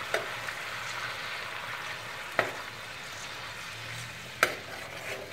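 Lamb tail fat and milk sizzling in a wide saç pan as a metal spoon stirs them. The spoon knocks sharply against the pan twice.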